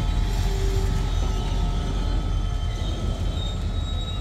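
Diesel-hauled freight train rolling slowly along the track: a steady low rumble of engine and wagons, with a few brief high squeals from wheels or brakes.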